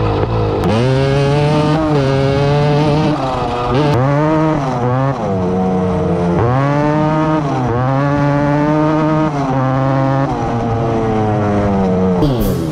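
Two-stroke 250cc quad engine revving, its pitch climbing and dropping again every second or two as the throttle is worked.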